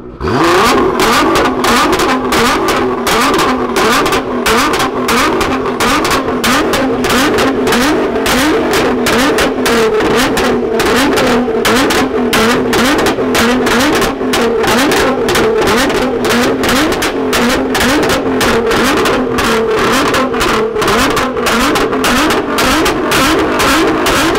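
Nissan GT-R R35's twin-turbo V6 through a straight-piped Armytrix exhaust, revved over and over in quick blips while the car stands still, its pitch rising and falling each time, with sharp pops all through. Very loud, starting suddenly at the beginning.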